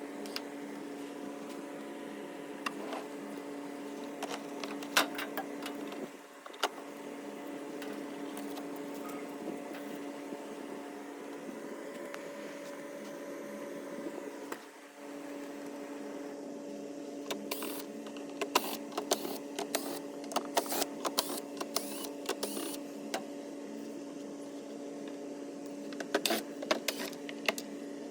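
Clicks and taps of a plastic swamp cooler being handled and taken apart, coming thick and irregular in the second half, over a steady hum.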